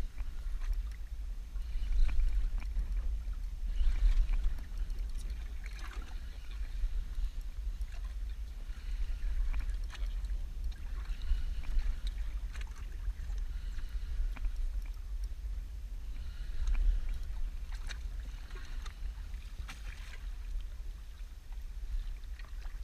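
Small waves lapping and slapping against the hull of a small inflatable boat drifting at sea, over a steady low rumble of wind on the microphone.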